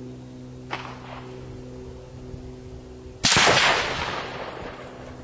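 A .308 Winchester Remington 700 VS rifle fires a single shot a little over three seconds in: a loud crack that dies away over about two seconds. A much fainter sharp crack comes about three-quarters of a second in.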